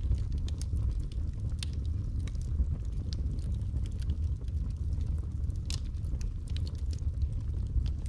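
Wood fire burning in a fireplace: a steady low rumble with irregular sharp crackles and pops from the burning logs. Two pops stand out, one about one and a half seconds in and one near six seconds.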